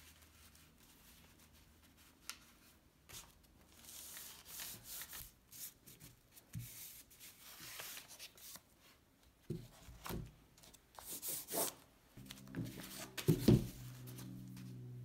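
Stiff paper rustling and crinkling as it is folded and smoothed around the edges of a canvas, with a few knocks as the canvas is handled and set down on the table; the loudest knock is about thirteen seconds in.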